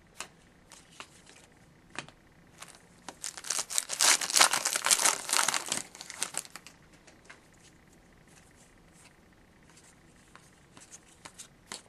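Foil wrapper of a hockey card pack being torn open and crinkled, a dense crackling for a couple of seconds near the middle, with scattered small clicks and rustles before and after.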